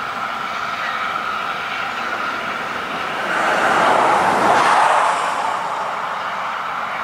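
Steam-hauled passenger train passing: W-class steam locomotive W 945 followed by its carriages rolling along the track. A steady rushing noise swells louder from about three to five seconds in, then eases.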